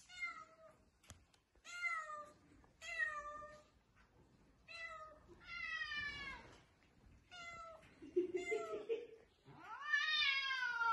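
Egyptian Mau cat meowing again and again: about eight separate meows that rise and fall in pitch, the last one near the end drawn out longer.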